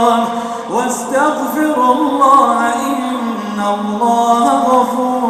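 A man's voice chanting Quran recitation in long, melodic held notes, unaccompanied. About three quarters of a second in there is a short break, and a new phrase begins with a rising note.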